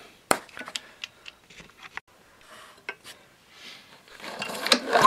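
Small clicks and taps of hands cleaning a spark plug with a rag and handling it at a Honda lawnmower engine, with one sharp click about a third of a second in and a swelling rustle near the end.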